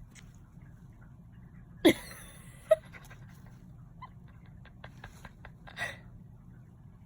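A cat sneezing as a twisted paper string tickles its nose: a sharp burst about two seconds in, a second sharp one a moment later, and a softer one near the end.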